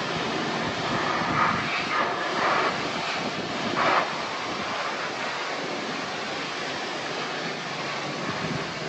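Pressure washer jet blasting water against the metal panels of a cow stall, a steady hiss and spray noise. It swells briefly a few times in the first four seconds as the jet hits the walls, then runs more evenly.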